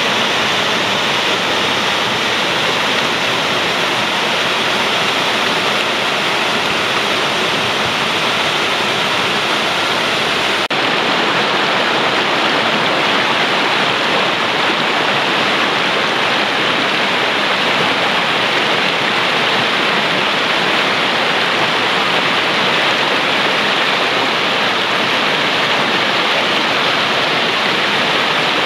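Mountain torrent rushing over boulders in white-water rapids: a loud, steady rush of water, its tone shifting slightly about ten seconds in.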